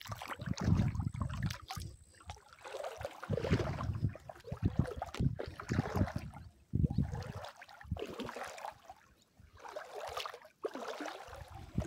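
Wind gusting on the microphone in irregular buffets, with small waves lapping at the edge of a lake.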